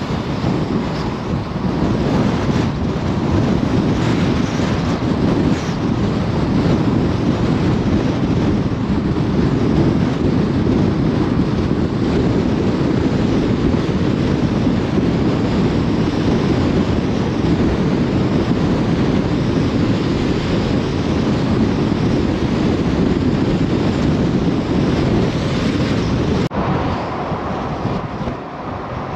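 Strong wind buffeting the microphone: a loud, fluttering rush. Near the end it cuts off sharply to a quieter, steadier rumble.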